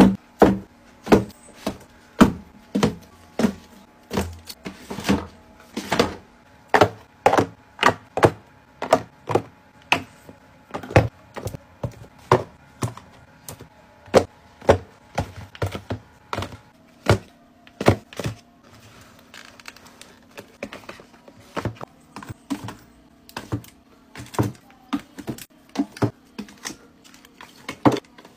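Small cardboard product boxes being set down one after another into a drawer, each landing with a sharp tap or knock against the drawer and the neighbouring boxes. The taps come roughly one to two a second, softer and sparser a little past the middle.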